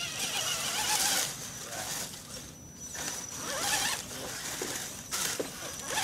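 Electric motor and geartrain of an RC scale rock crawler whirring in spurts as it crawls over rock and dry leaves, easing off briefly about halfway through.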